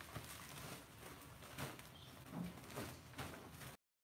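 Irregular soft knocks and rustles of plastic-wrapped wood-ear mushroom baglogs being handled and passed down from a truck bed. The sound cuts out briefly near the end.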